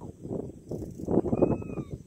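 A hooked boga thrashing: a rapid, uneven run of slaps and knocks that gets louder about a second in.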